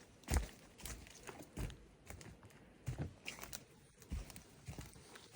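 Footsteps of a person walking along a wet forest track: a soft thud at each step, roughly one to two steps a second, with light rustling and scuffing between them.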